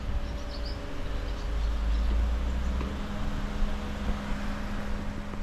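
A vehicle running: a steady hum over a low rumble that eases about three seconds in.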